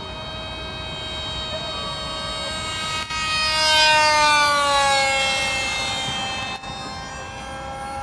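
Brushless electric motor of a delta-wing RC model jet whining in flight. It grows louder as the plane makes a low pass, loudest about four seconds in, and its pitch drops as it goes by.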